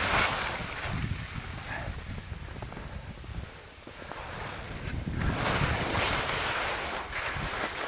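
Skis scraping and hissing over lumpy snow in turns, with surges of hiss near the start and again from about five seconds in, over a low rumble of wind on the microphone.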